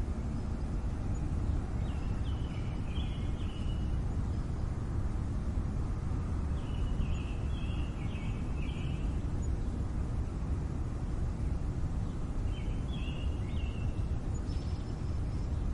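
City street ambience: a steady low rumble of traffic, with a bird singing short, high, stepped phrases over it three times.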